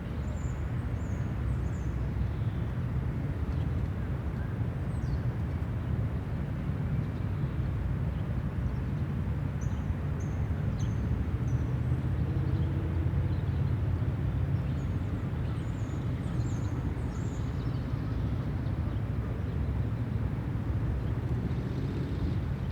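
Park ambience: a steady low rumble of city traffic under short, high bird chirps that come in a few scattered clusters.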